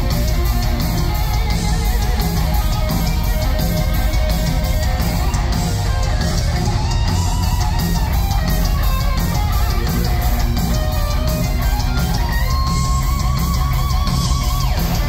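Heavy metal band playing live: electric guitars, bass and drums, loud and continuous. A held note with vibrato stands out above the band near the end.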